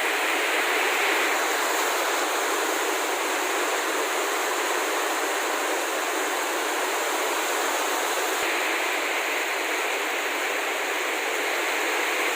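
Heavy rainstorm downpour: a dense, steady hiss of rain that holds unchanged throughout.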